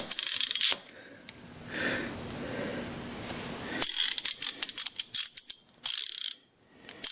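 Socket ratchet wrench clicking in quick runs, once at the start and again in a longer run about four seconds in.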